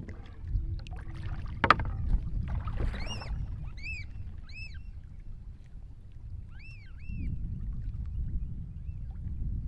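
American oystercatcher calling: a series of about six loud piping whistles, each rising then falling, beginning about three seconds in. Underneath is a low rumble of water and wind around the canoe, with one sharp knock a couple of seconds in.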